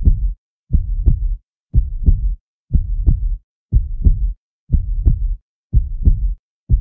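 A heartbeat sound effect: low double beats, lub-dub, evenly about once a second.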